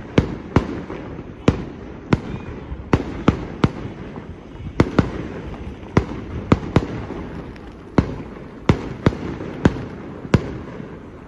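Fireworks display: shells bursting with sharp bangs in quick, irregular succession, roughly two a second, over a continuous rumble.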